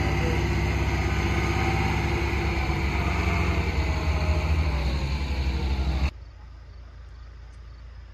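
Large diesel farm tractors running as they drive over and pack a corn silage pile, a steady low engine note. About six seconds in the engine sound cuts off abruptly, leaving a much quieter outdoor background.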